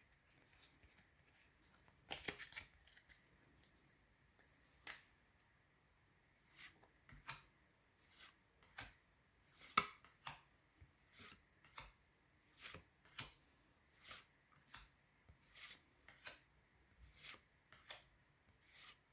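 Pokémon trading cards being slid one behind another in the hand. There are faint soft flicks and rustles, about two a second through most of the stretch.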